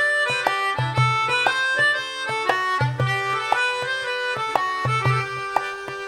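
Violin, melodica and djembe playing an instrumental tune together: quick melodic notes from the violin and melodica over clusters of low hand-drum strokes.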